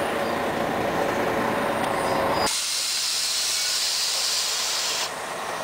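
Inside a Scania CN113ALB city bus: engine and road noise rumbles in the cabin. About halfway through, the rumble drops away and a loud, steady hiss of compressed air from the bus's air system takes over, ending abruptly after about two and a half seconds.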